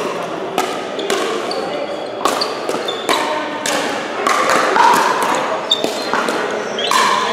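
Pickleball paddles striking a hard plastic ball during a rally: about eight sharp pops at uneven intervals of half a second to a second, some from neighbouring courts, each leaving a short echo.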